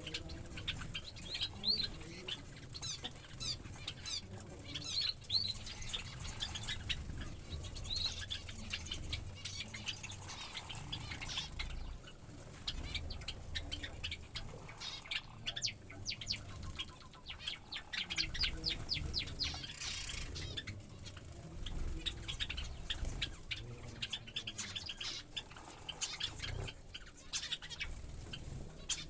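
Finches and Java sparrows chirping in many short high notes, with a fast run of chirps around the middle, over repeated fluttering of wings.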